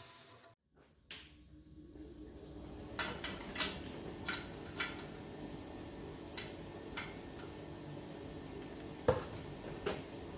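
About eight light clinks and knocks, scattered and irregular, as of hard objects being handled and set down, over a steady low hum.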